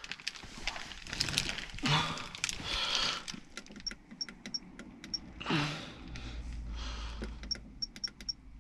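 Dash cam menu buttons being pressed repeatedly: a run of sharp clicks, a few with a short high beep, amid rustling of hands on the unit.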